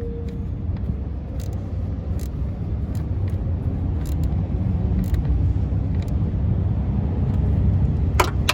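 Steady low rumble of nearby traffic, with light clicks of bolts and tools being handled and a sharper click near the end.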